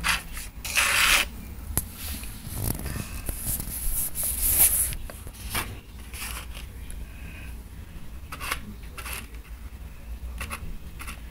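Rubbing and scraping handling noises with scattered clicks, from a phone held in one hand close to wooden earrings being moved about on cardboard; louder scratchy rustles about a second in and again around four and a half seconds in.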